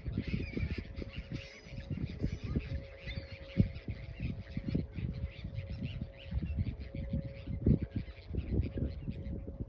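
A flock of birds calling, with chirps and squawks over an irregular low rumble and thumping.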